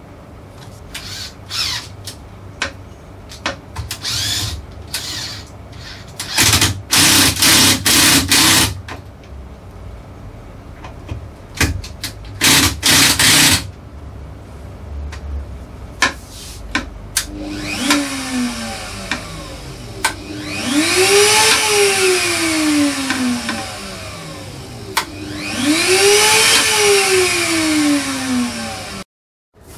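A trim router mounted in a router table is switched on and off; twice its whine climbs as the motor spins up and then sinks away as it coasts down, after an earlier whine that only falls away. Before that come scattered clicks and two loud bursts of rushing noise, each a second or two long.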